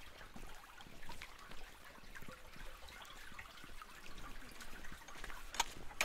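A woodland brook trickling and babbling over stones, a steady faint rush of water with a few small clicks, and a couple of sharper clicks near the end.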